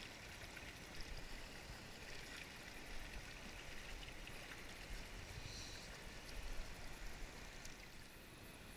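Shallow stream flowing steadily around the angler's legs, with a few faint clicks.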